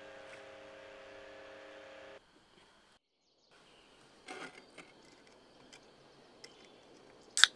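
Aluminium beer can being handled on a wooden camp table: a light knock about four seconds in, a few faint clicks, then near the end a short, sharp, loud crack of the can's tab being pulled open. Before the cut a steady hum with a few steady tones runs for about two seconds.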